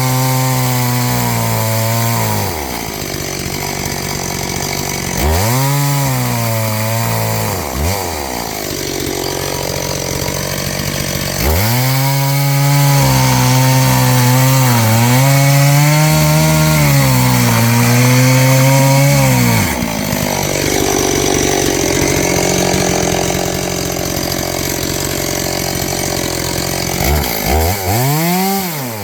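Noker 381 two-stroke chainsaw revved to full throttle in four bursts, the longest about eight seconds, its pitch sagging slightly under load as it cuts wood. Between bursts it drops back to a lower running note.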